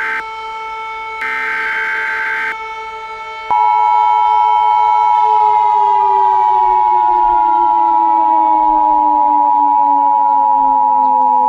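Civil defense warning siren sounding, with steady wailing tones and two short bursts of hiss in the first few seconds. About three and a half seconds in a louder tone joins, and from about five seconds in the lower tones slowly wind down in pitch.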